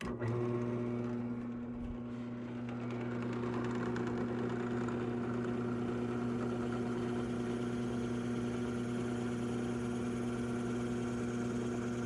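Drill press motor running steadily, its twist bit boring a hole into a cast epoxy resin blank.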